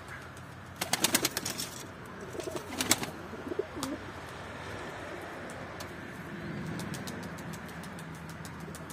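Domestic pigeons cooing, with a quick run of sharp claps about a second in and a few more around three seconds.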